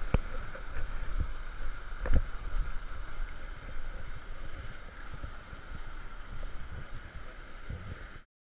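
Fast, shallow river rushing over stones in a steady hiss, with gusts of wind buffeting the microphone and a few knocks. It cuts off suddenly near the end.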